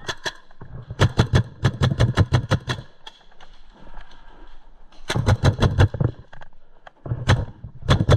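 Tippmann A-5 paintball marker firing in rapid strings of sharp pops, several shots a second. There are three strings: one of about two seconds near the start, a shorter one past the middle, and another starting near the end.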